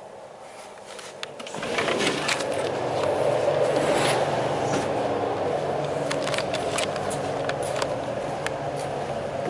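Power equipment running: a loud, steady grinding noise with scattered crackling clicks that swells up about one and a half seconds in.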